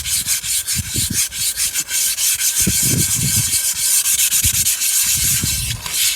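A brick scrubbed hard back and forth over a rusted cast iron skillet, a harsh continuous scraping made of quick strokes as the rust is ground off.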